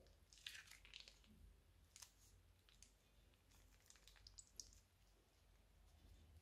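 Faint, scattered crinkles and clicks from a plastic piping bag being squeezed by hand as the blue mixture is piped out.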